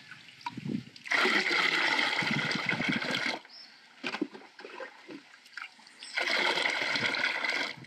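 Liquid biogas digester effluent poured from a cut-off plastic jug into a bucket half full of water, twice, each pour lasting about two seconds, to dilute it 50-50. Between the pours come quieter sloshes and knocks as the jug is dipped back into the effluent bucket.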